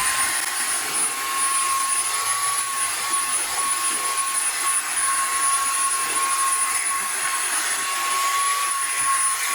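Cordless handheld car vacuum running steadily, a high motor whine over a rush of airflow, as it sucks up spilled snack puffs.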